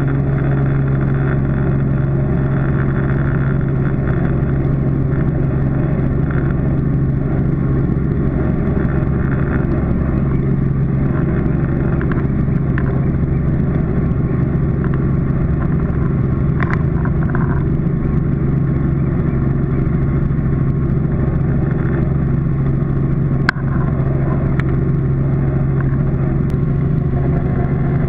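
Robinson R44 helicopter heard from inside the cockpit in flight: the steady drone of its six-cylinder piston engine and rotors, with a strong low hum that holds an even pitch throughout.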